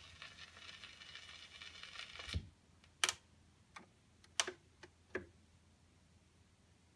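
Pierre Clement E25N pickup on a 78 rpm record giving faint surface hiss and crackle, then a short thump about two and a half seconds in as it is lifted off the disc. Five sharp clicks follow over the next two seconds as the tone arm is handled and set on its rest.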